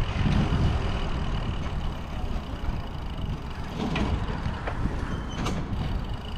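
Low rumble of wind and passing road traffic picked up from a moving bicycle, easing off over a few seconds, with a few short high squeaks in the second half.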